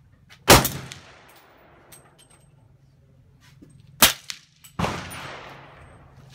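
Three shots from a suppressed .300 Blackout AR-style rifle: one about half a second in, then two close together around four and five seconds in. Each ends in a long, fading echo under the range roof.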